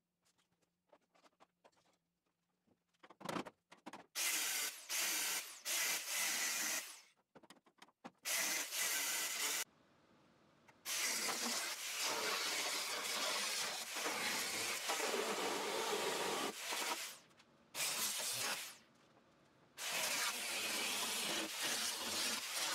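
Angle grinder cutting through the rusty sheet-steel floor pan of a Willys Jeep body tub, in several long cuts with short pauses between. The first few seconds hold only light clicks and taps before the cutting starts.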